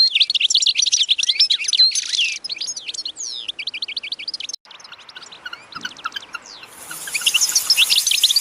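A flock of small birds chirping and twittering densely and fast. The chatter cuts off abruptly about four and a half seconds in, is fainter for a couple of seconds, then swells back loud near the end.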